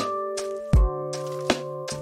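Background music: held keyboard chords over a drum beat, with a low kick drum and sharp hits about halfway through and near the end.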